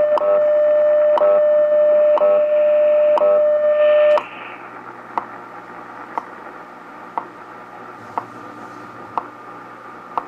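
Realistic DX-302 shortwave receiver playing the NIST time-signal broadcast on 15 MHz: a steady tone broken by a short tick every second. The tone cuts off about four seconds in, leaving the once-a-second ticks over static hiss.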